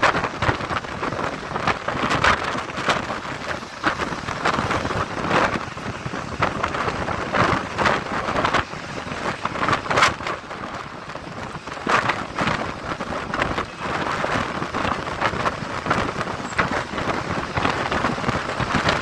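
Wind buffeting the microphone of a camera held out of a fast-moving vehicle, crackling with frequent short gusts over a steady rush of road and traffic noise.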